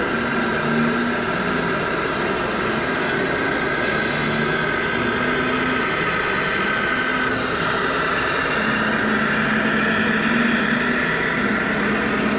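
Radio-controlled model trucks' small motors running, the pitch of their whine stepping up and down as they drive, over a steady noisy background.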